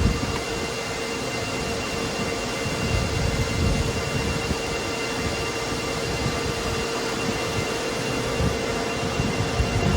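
Machinery running steadily: a constant drone with a steady low hum and a fainter high whine over an even rushing noise, with an uneven low rumble underneath.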